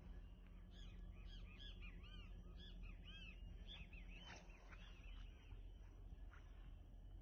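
Faint bird calls: a rapid string of short arching chirps that starts just under a second in and fades out after about five seconds, over a low steady rumble.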